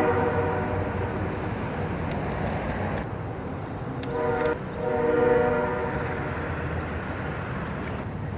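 Train horn sounding over a low rumble: a held blast fades out just after the start, and another sounds about four seconds in and swells before dying away near six seconds.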